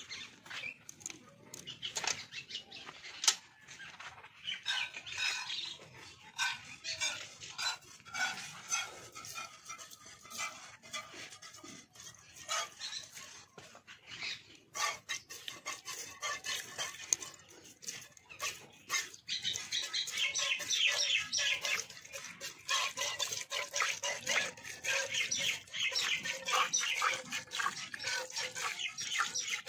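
Cow being milked by hand: quick rhythmic squirts of milk hitting a steel bucket, growing denser and louder about two-thirds of the way through.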